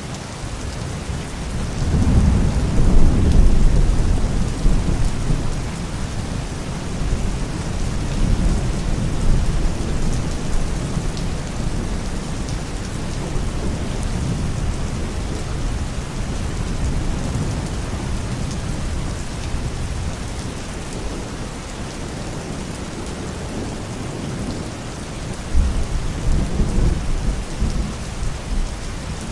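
Thunderstorm: steady rain with rolling thunder. A long rumble builds about two seconds in and dies away over several seconds, and a second rumble comes near the end.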